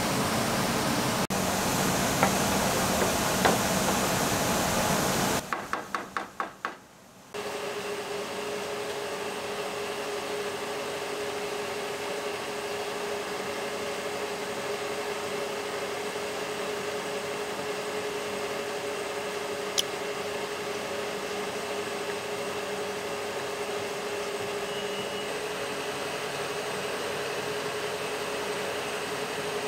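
Steady hiss of a gas range burner under a large stockpot being stirred with a wooden spoon, cut off about five seconds in. A quick run of about eight taps follows, then the steady hum of a kitchen fan with one held tone, broken by a single sharp tick.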